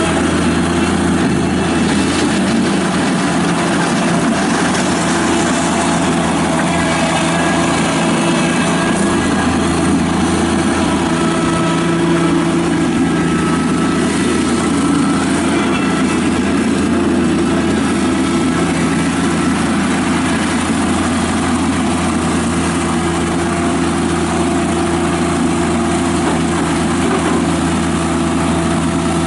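Toro Dingo TX525 mini track loader's Kubota diesel engine running steadily at a constant speed.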